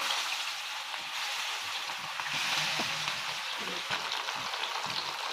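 Tilapia steaks sizzling steadily in hot mustard oil in a flat frying pan, as more pieces are laid into the oil.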